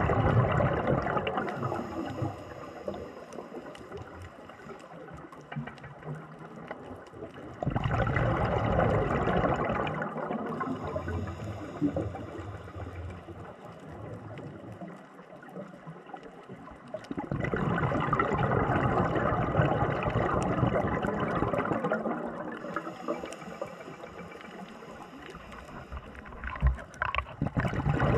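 Scuba diver breathing through a regulator underwater: a long bubbling rush of exhaled air about every nine to ten seconds, with quieter stretches between breaths.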